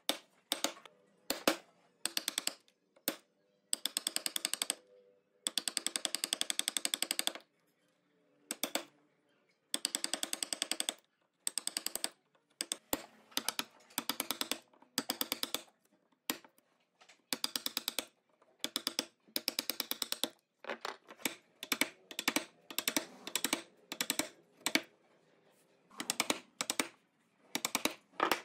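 Bursts of rapid, evenly spaced sharp taps, about ten a second, from a woodworking tool striking wood, each run lasting one to two seconds with short pauses between.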